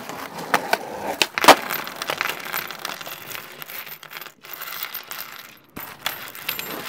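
Small metal skateboard bearings clinking and clattering: a run of sharp clicks, busiest in the first two seconds with the loudest clatter about a second and a half in, then sparser clicks.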